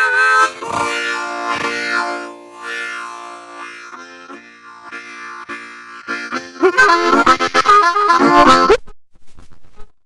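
Harmonica played solo: long held chords that slowly fade, then about six and a half seconds in a run of fast, choppy chords that stops abruptly near the end.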